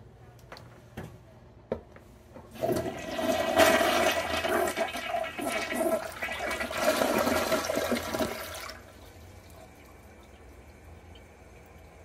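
Kohler toilet flushing: a few short clicks, then a loud rush of water swirling down the bowl from about two and a half seconds in, which cuts off sharply near nine seconds and leaves a faint steady hiss.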